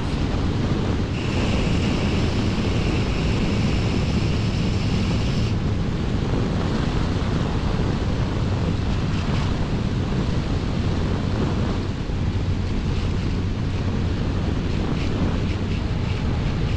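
Wind buffeting the microphone on a moving motorcycle, with the Honda CBR1100XX Blackbird's inline-four engine humming steadily underneath at an even speed. A brighter hiss joins for a few seconds near the start.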